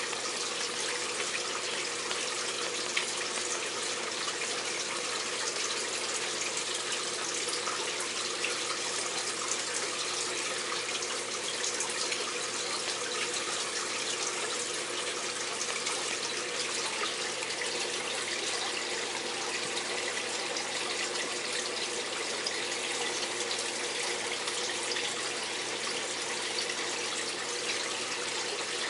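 Aquarium filter running in a terrapin tank: a steady rush of moving water with a low, even hum under it.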